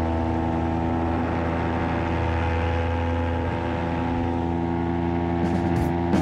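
Paramotor engine and propeller running steadily at cruise power: an even, unchanging drone.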